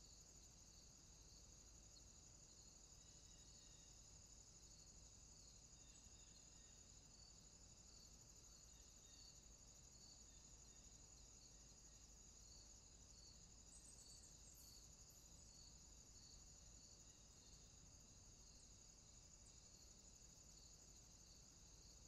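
Faint, steady chorus of crickets, with a lower chirp repeating about once a second.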